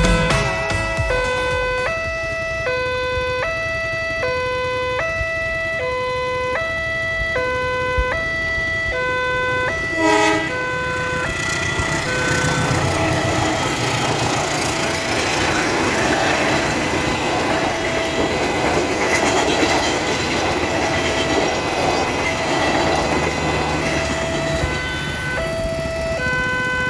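Level crossing's electronic warning alarm alternating steadily between a high and a low pitch, with a short train horn blast about ten seconds in. From about twelve seconds a train hauled by a CC 201 diesel-electric locomotive passes the crossing, and the rumble of its engine and wheels on the rails rises under the alarm.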